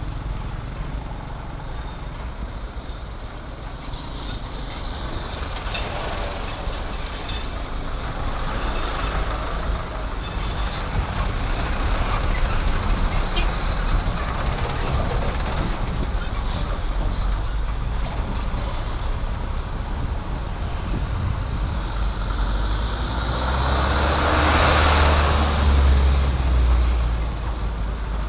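Road traffic crossing a level crossing: trucks, including heavy dump trucks, motorcycles and cars driving past with engine and tyre noise. The loudest pass, a heavy truck going by close, comes near the end.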